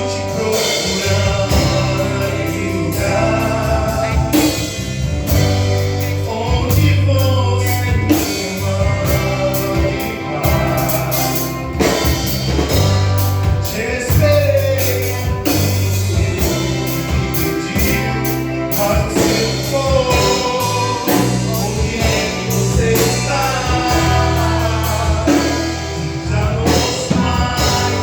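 Gospel band performing a song: singing voices over a steady bass line, drums and other instruments.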